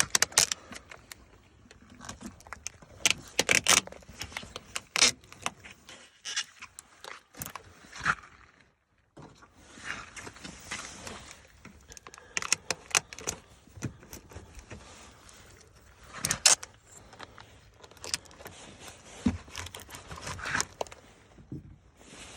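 Irregular clicks, crinkles and scrapes of red lens repair tape being handled, stretched and pressed onto a plastic tail-light lens.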